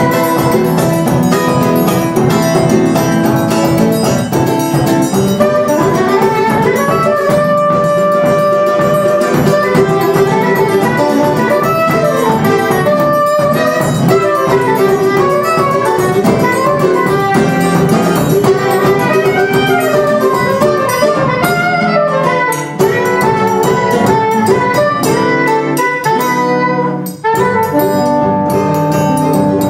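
Live Brazilian choro ensemble playing a baião: a soprano saxophone carries the melody over acoustic guitar, cavaquinho and pandeiro, with a short break in the playing near the end.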